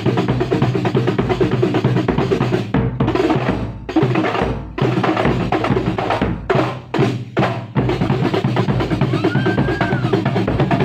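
Kuntulan percussion ensemble playing, with frame drums and drums beating a fast, dense rhythm. The playing breaks off briefly a few times, with a run of quick stops about six to eight seconds in.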